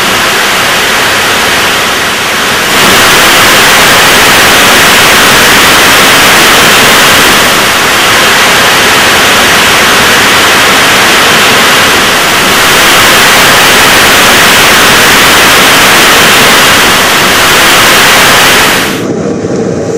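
Interorbital GPRE 7.5KNTA liquid rocket engine, a 7,500-lb-thrust hypergolic nitric acid and turpentine engine, firing on a static test stand: a very loud, steady roar. The sound dies away near the end as the firing ends.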